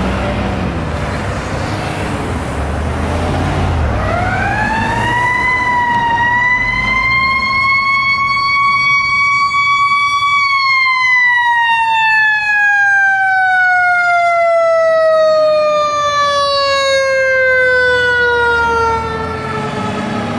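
Fire engine's mechanical siren winding up about four seconds in, holding a high steady tone, then slowly winding down in pitch over the last ten seconds, over the rumble of passing traffic.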